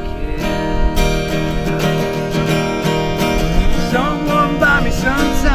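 Acoustic guitar strummed steadily in an instrumental passage of a song, before the vocals come in.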